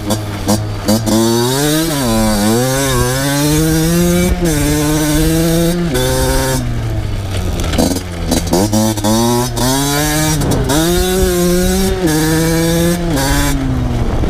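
Two-stroke motocross bike engine ridden hard, revving up and down over and over, with its pitch climbing and then dropping suddenly several times.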